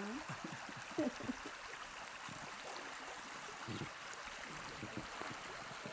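River water running steadily, a low even rush.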